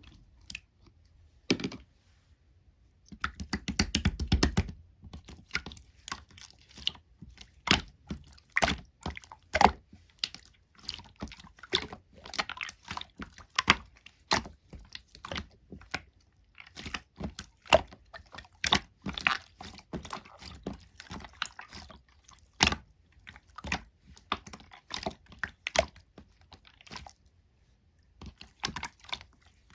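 Translucent blue slime being squished and poked by hand, giving irregular wet clicks and pops, with a longer squelching stretch a few seconds in.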